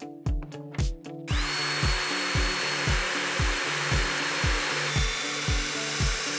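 DeWalt cordless drill starting up about a second in and running steadily as it bores into a pine board, a thin high whine over the whir that dips a little in pitch about five seconds in. Background music with a steady beat plays underneath.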